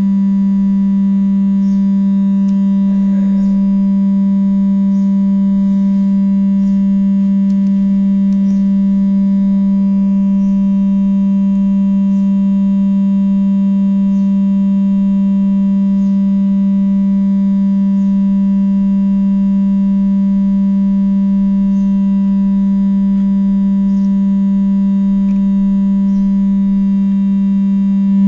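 A steady test tone of about 196 Hz played through a loudspeaker driven by a home-built transistor (BJT) audio power amplifier, a sine signal carrying a row of overtones rather than a pure tone. It holds one pitch and level throughout.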